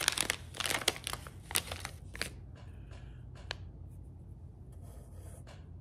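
Plastic packaging of soft-plastic drop shot minnow baits crinkling as it is handled. The crinkling is dense for about the first two seconds, then thins to a few scattered crackles.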